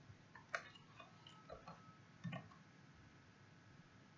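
A few faint, scattered computer keyboard keystrokes over near silence.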